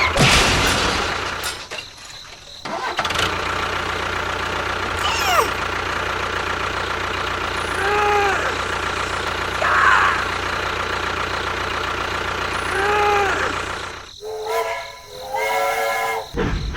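A small engine or motor running steadily, cut off briefly twice, with a few short pitched calls over it.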